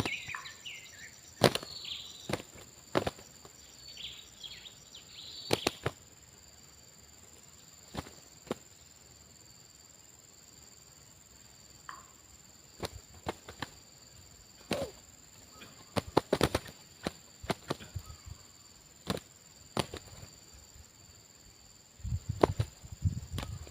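Steady high drone of insects, with scattered sharp clicks and knocks throughout. There are a few short chirps in the first six seconds and a low rumbling burst near the end.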